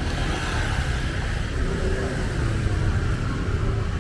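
Steady low rumble of motor traffic, with an engine passing and swelling slightly midway.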